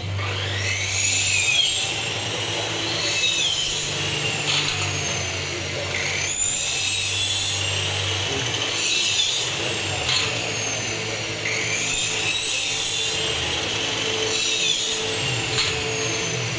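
Electric power saw run in repeated bursts: three times a rising whine as it speeds up, a high running whine, then a falling whine as it winds down, about every five to six seconds.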